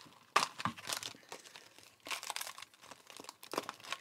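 Rustling and crinkling of a sheet of decoupage paper being picked up and handled, in irregular short bursts.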